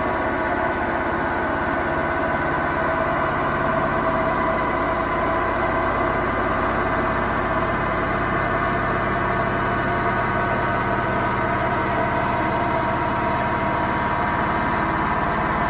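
Hoover VHD 9163 ZI washing machine spinning its drum, a loud, steady rumble with a droning whine: the drum bearings are broken.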